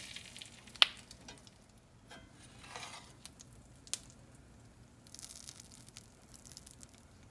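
Hot butter and oil sizzling faintly in a cast iron skillet, with one sharp metal clink about a second in and a few lighter ticks.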